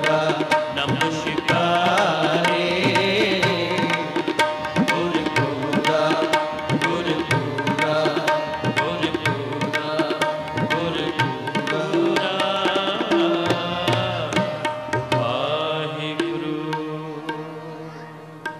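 Sikh Gurbani kirtan: a man sings to a harmonium's held chords with a running tabla accompaniment. The music winds down and fades over the last few seconds.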